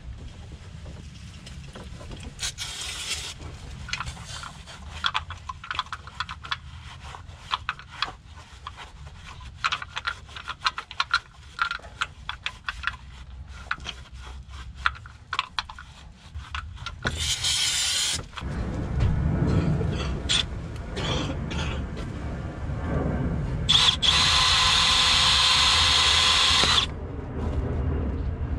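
Handheld red cordless power tool running against the engine block. It starts with scattered clicks and knocks of tool handling, then runs in spells during the second half; the longest and loudest spell lasts about three seconds near the end and cuts off suddenly.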